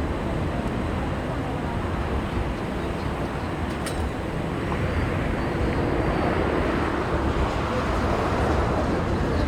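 Jet engines of a Boeing 747-400 freighter, a steady rumbling roar that builds slightly in the second half.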